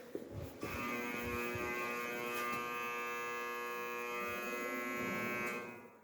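Buzzer of a yellow warning beacon sounding one steady buzzing tone that starts about half a second in and cuts off near the end.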